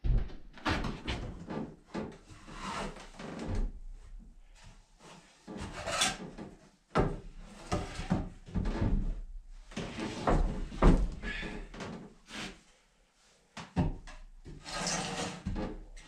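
Pieces of wood being picked up, set down and slid around on a wooden workbench: irregular knocks and scrapes, with a short lull near the end.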